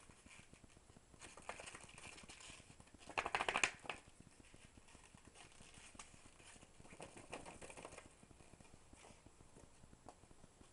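Paper booklet being handled and its pages flipped, a soft rustle with one louder riffle of quick flicks about three seconds in and a fainter one near the middle to end.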